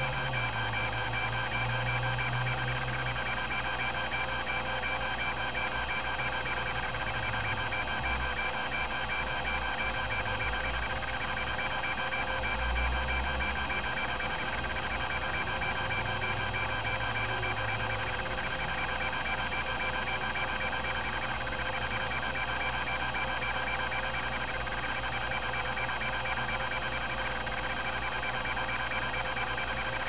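Epson-Seiko HD-860 20MB MFM hard drive running continuous test seeks: its linear stepper rack-and-pinion head actuator buzzes steadily over the hum of the spinning platters, with a pattern that repeats about every two seconds.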